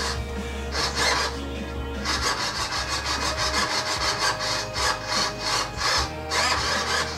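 RC airplane elevator servos (Power HD) driven back and forth from the transmitter, whirring in a run of short strokes, several a second.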